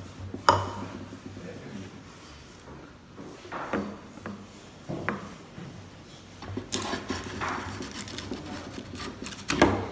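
Hand plane being pushed along a wooden board, a scraping swish as it takes a shaving, the longest stroke a little past the middle. Sharp knocks of the tool against the wood about half a second in and again near the end.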